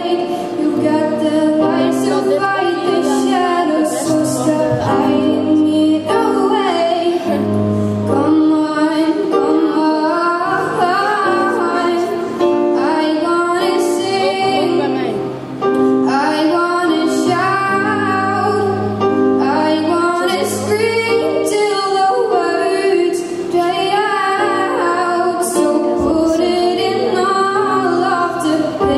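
A girl singing a solo song into a microphone, accompanying herself with sustained chords on an electronic keyboard.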